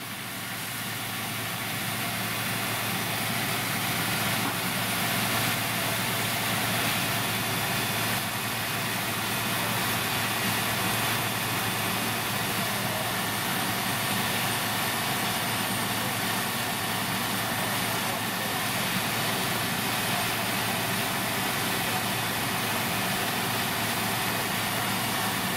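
Fire truck's diesel engine running steadily, under a constant hiss.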